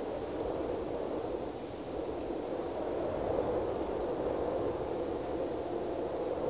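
A steady rushing noise with no distinct tones or beats, slowly growing louder.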